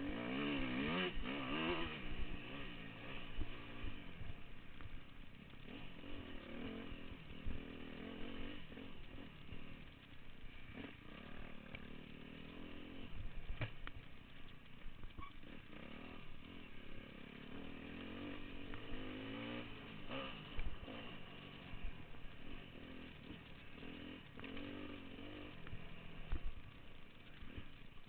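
Dirt bike engine under hard riding on a trail, the engine note rising and falling over and over as the rider throttles on and off. A few sharp knocks are heard over the engine.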